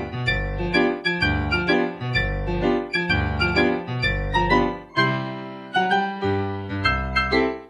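Solo piano music, with low bass notes under quicker notes higher up.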